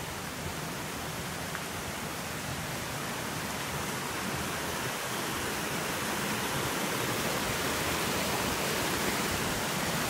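Small waterfall and stream rushing, a steady hiss that grows gradually louder.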